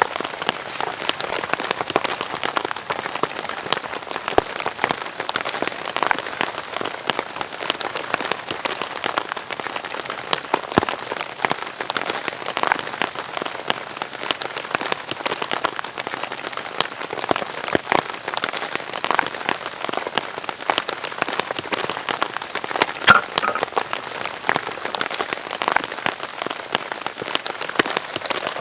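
Heavy rain falling steadily, a dense patter of individual drops striking a surface, with a few louder single drips now and then.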